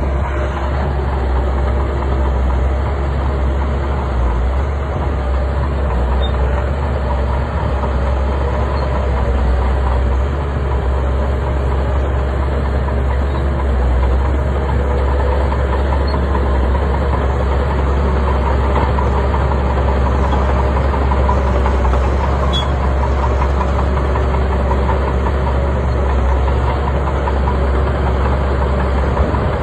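Bulldozer's heavy diesel engine running steadily, with a deep, even rumble.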